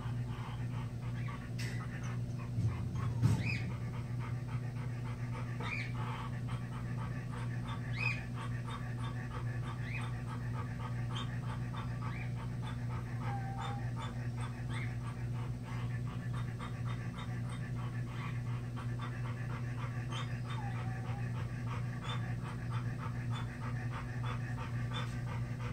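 An animal breathing fast, with short high whimpering cries every couple of seconds, over a steady low hum. One sharp knock about three seconds in.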